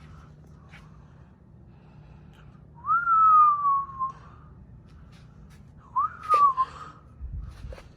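A man whistling twice in admiration: a longer whistle about three seconds in that slides up and then slowly falls, and a shorter up-and-down whistle about six seconds in. Faint rustling follows near the end.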